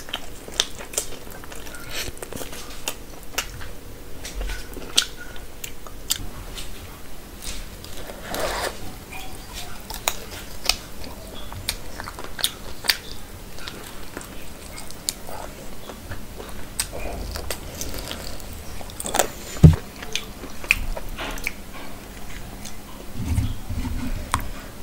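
Close-up mouth sounds of someone eating spiced chicken and mutton curry by hand: chewing, biting and wet lip smacks, with many sharp clicks. One loud thump comes about four-fifths of the way through. Near the end, fingers squelch through curry in a clay bowl.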